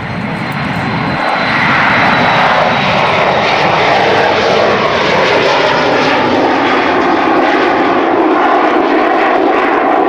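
Kawasaki C-1 jet transport's two JT8D turbofan engines at takeoff power as it climbs away, a loud roar that builds over the first two seconds and then holds, with its whine sliding down in pitch.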